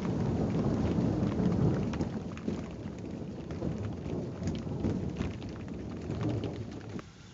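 Thunder rumbling, loudest in the first two seconds and then slowly dying away, over steady rain.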